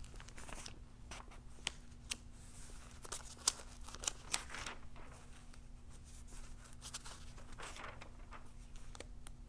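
Thin Bible pages being turned and leafed through by hand: a run of short, crisp paper rustles and flicks, sharpest in the first half.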